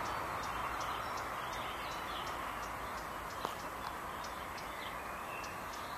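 Outdoor ambience: a steady hiss with a regular run of short, high ticks a few times a second and a few faint bird chirps. A single sharper click comes about three and a half seconds in.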